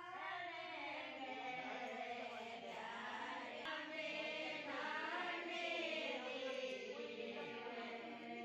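Chant-like singing.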